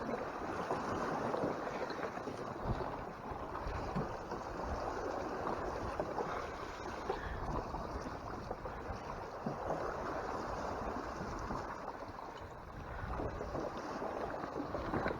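Steady rush of water and wind around a Hobie Tandem Island sailing kayak under way.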